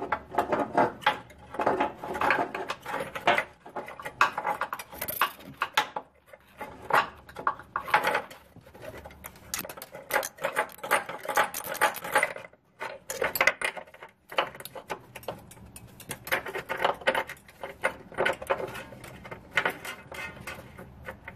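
Carriage bolts clinking and rattling against the metal of a Jeep Cherokee frame rail as they are fished by hand through a hole into it, in quick, irregular clicks and knocks with short pauses.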